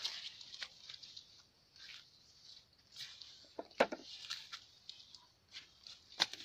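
Footsteps through dry grass, then a long-handled digging spade driven into dry ditch soil. It makes a sharp, loud thud about four seconds in and another near the end, as a hole is dug for a crab trap.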